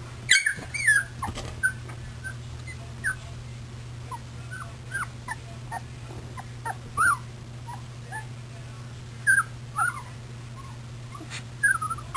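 Golden Retriever puppies whimpering and squeaking: many short, high, scattered cries, a few louder ones about half a second in and near 7 and 9 seconds, over a steady low hum.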